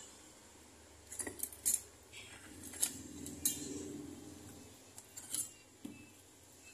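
Small metal jeweller's hand tools, such as long tweezers, clinking against each other and the bench as they are handled: a scattered series of sharp clinks.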